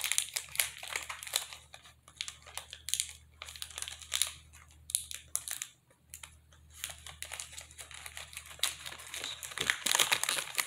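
Crinkly candy wrapper of a Reese's peanut butter cup pack being torn open and handled, a run of crinkling and crackling that is loudest at the start and again near the end.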